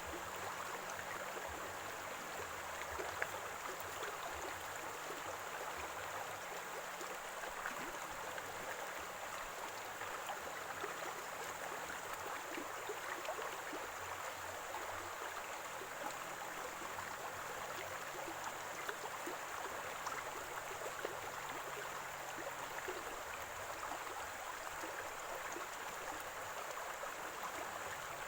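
Running water in a small stream gurgling steadily, with many small splashes flickering through it.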